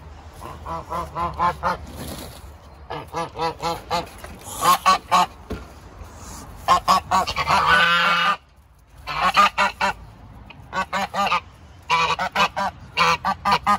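Several domestic geese honking in quick repeated series, with one longer, louder call that cuts off suddenly about eight seconds in.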